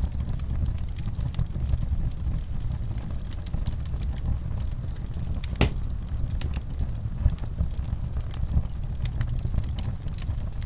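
Wood fire crackling: frequent small pops and snaps over a steady low rumble, with one louder pop about halfway through.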